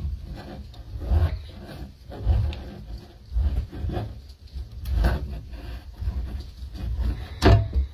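Hand-turned can opener being cranked around the rim of a metal food can, a rasping scrape with each turn about once a second along with dull handling knocks; a sharper metallic scrape with a short squeal near the end.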